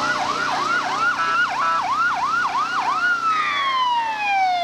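Ambulance siren in a fast yelp, about three sweeps a second, then dropping into one long falling wind-down about three seconds in.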